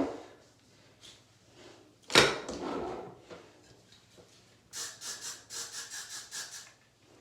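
Quick brush strokes through wig hair, about five a second, lasting about two seconds near the end. A single knock about two seconds in, like a tool or bottle being set down.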